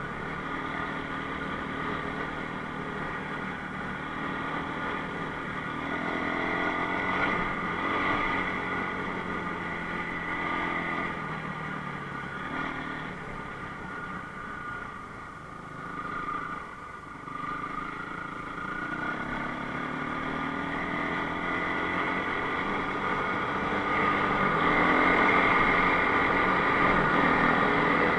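Enduro motorcycle engine running while being ridden, its revs rising and falling, getting louder near the end.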